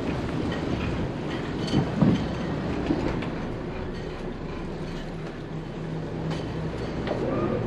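Steady low rumble of a motor yacht's inboard engines idling, with a few scattered knocks and clicks from someone moving about on board.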